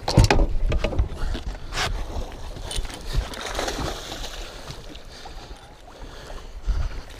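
A hooked musky thrashing at the water's surface beside a boat: loud splashes in the first second, then lighter splashing and sloshing water.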